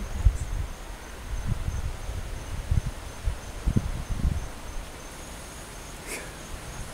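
Crickets trilling in one steady high-pitched tone. During the first four and a half seconds, irregular low thumps on the microphone sound under the trill.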